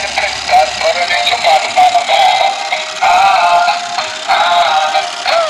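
Battery-powered dancing robot toy playing its built-in song through its small speaker: a synthesized voice singing a looping electronic tune. The sound is thin, with almost no bass.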